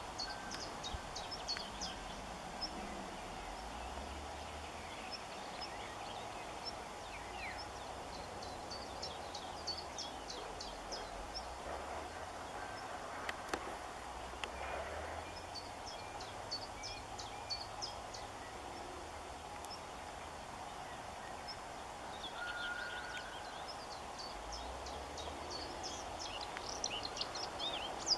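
Small songbirds chirping and twittering: short, high notes scattered throughout, in quick runs in places, over a steady low hum and patches of low rumble.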